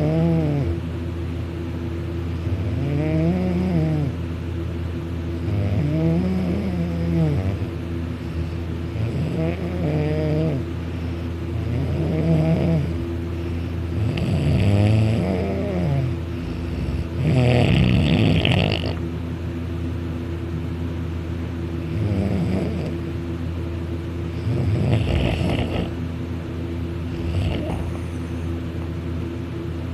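A sleeping person snoring loudly, lying on his back with his mouth open. There is a pitched snore about every three seconds, each rising and then falling in pitch, and one rougher, louder snore about 18 seconds in.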